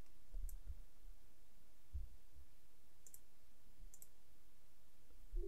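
Computer mouse clicking: a few short, faint clicks, some in quick pairs, with a few soft low thumps over a steady background hiss.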